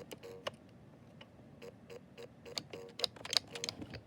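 VTech toy Ferris wheel with dying batteries clicking steadily, about three to four ticks a second, each tick carrying a short low tone, with a run of louder clicks about three seconds in. The stuttering, glitchy sound is typical of a VTech toy whose batteries are running low.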